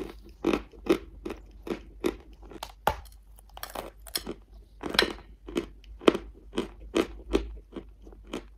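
Lumps of dry chalk being bitten and chewed: a steady run of crisp crunches, about two to three a second.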